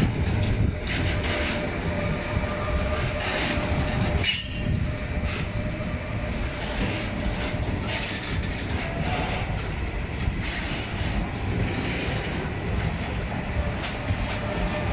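Freight train passing at a crawl, its wagons rumbling steadily with wheels clicking over rail joints and a faint steady wheel squeal; one sharp bang about four seconds in.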